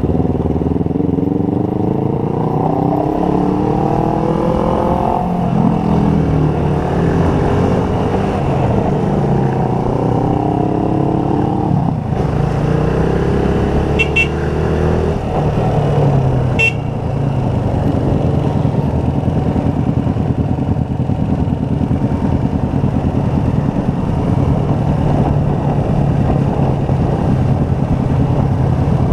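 Motorcycle engine pulling hard, its pitch climbing over the first few seconds, dropping back and climbing again up to about twelve seconds in, then running steadily at cruising speed under a constant rush of wind. Two short high beeps come about halfway through.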